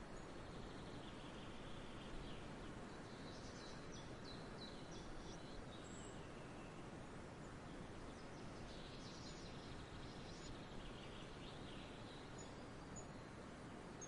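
Faint forest ambience: a steady background hiss with small songbirds singing high-pitched phrases on and off. The clearest phrases come about three to six seconds in and again about nine to eleven seconds in.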